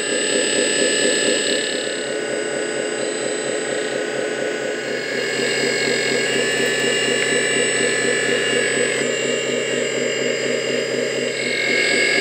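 Electric hydraulic pump of a LESU 8x8 RC truck's model crane running steadily, a whine over a fast buzzing pulse, as the crane works its cylinders and hook. The pump grows a little louder about halfway through and again near the end.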